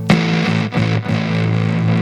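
Electric guitar played through a transistor fuzz pedal: a heavily distorted chord struck at the start, restruck twice within the first second, then left to sustain.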